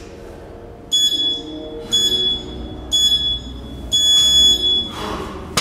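Gym interval timer beeping its start countdown: three short high beeps a second apart and a longer fourth beep, signalling the start of the workout. Near the end, a clatter from the loaded barbell as the first lift begins.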